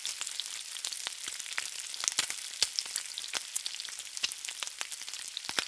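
A dense crackling sizzle with many sharp pops, like food frying in hot oil, which cuts off suddenly near the end.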